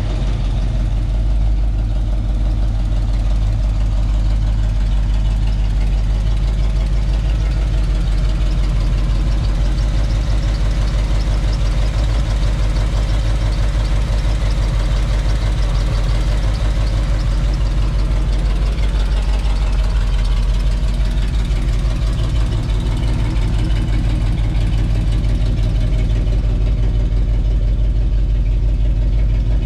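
Cadillac V8 engine in a 1939 Dodge tow truck, idling steadily.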